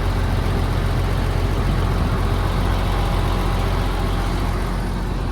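Semi-truck diesel engine idling steadily, with strong wind buffeting the microphone.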